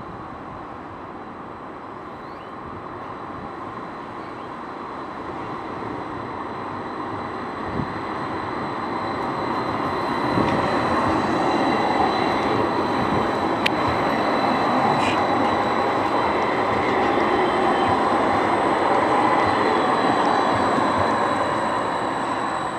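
CAF Urbos 3 tram running on street track, growing steadily louder as it approaches and then rolling past close by from about ten seconds in. A couple of short sharp clicks come midway as it passes.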